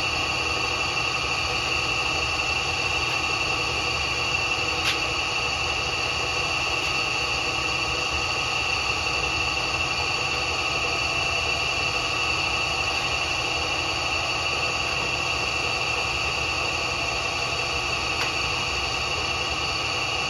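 Bridgeport milling machine running steadily, its motor and spindle giving an even hum with a constant high whine. A single sharp click about five seconds in.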